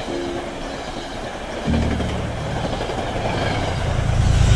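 Metro-North commuter train passing close by at speed: a steady rush of wheels on the rails that grows louder toward the end.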